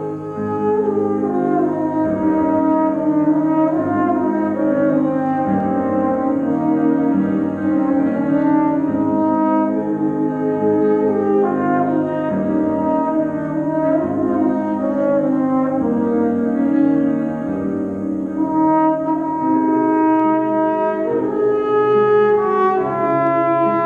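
A trumpet-type brass instrument playing a melody of held, changing notes, with grand piano accompaniment.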